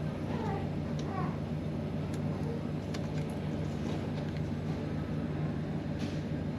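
A few faint clicks and light handling noises of plastic parts and hose fittings over a steady low hum.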